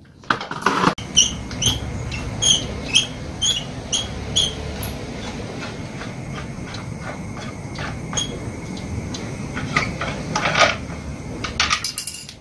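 Metal-on-plastic clicking and clatter from hand work on a brush cutter: a run of about eight sharp, evenly spaced clicks, about two a second, then scattered knocks and handling noises near the end, over a steady low hum.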